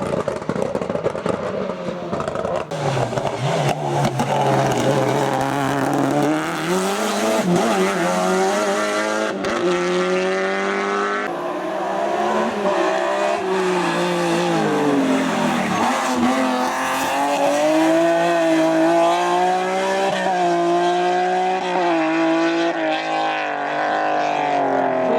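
Hillclimb race car engine at hard throttle, its pitch rising and falling again and again as it revs up through the gears and drops back on the lift.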